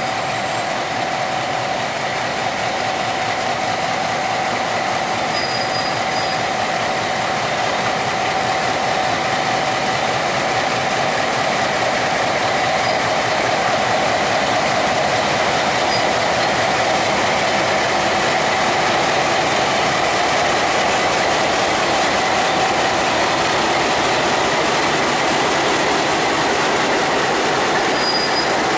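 Diesel locomotive hauling a long freight train slowly past, its engine drone mixed with wheel and wagon noise on the rails and a steady high whine. The sound grows a little louder as the locomotive draws level.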